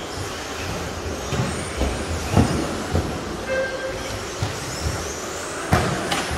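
Several electric radio-controlled racing trucks running on an indoor carpet track: high motor whine and tyre noise echoing around the hall, with several sharp knocks as trucks hit the track edging and ramps.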